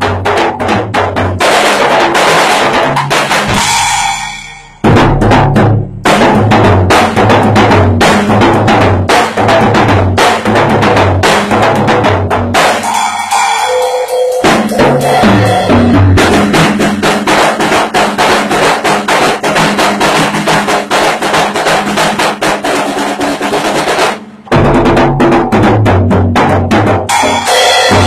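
Acoustic drum kit played in a steady groove, with kick drum, snare and cymbals. The playing stops briefly twice, about four seconds in and again a few seconds before the end.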